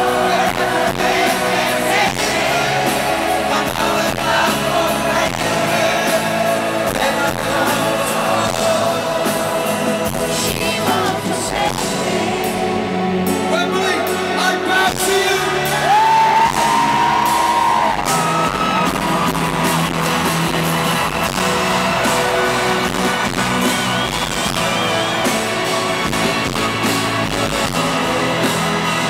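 Live stadium performance of a pop-rock ballad: a male lead singer at the microphone over full band accompaniment, heard from within the audience with crowd voices mixed in. One long held sung note comes about halfway through.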